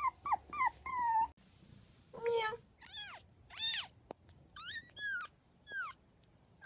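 A small puppy whimpering in a few short, high, falling yelps. After about a second and a half a young kitten mews repeatedly: about six thin, high mews that rise and fall in pitch.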